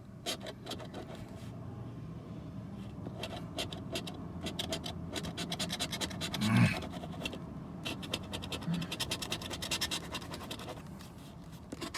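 Instant lottery scratch-off ticket being scratched, rapid repeated strokes scraping off the coating in quick runs. A brief vocal sound about six and a half seconds in.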